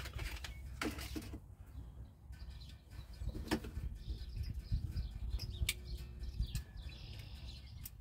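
Hands rustling a seatbelt bypass plug's plastic packaging and working the seatbelt sensor's plastic wiring connector under a UTV seat, with a few sharp clicks, over a low rumble.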